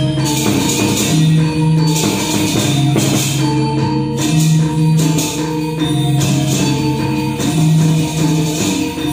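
Balinese gamelan playing topeng dance accompaniment: low metallophone or gong notes ring and change every second or so under a dense, fast clashing of small cymbals.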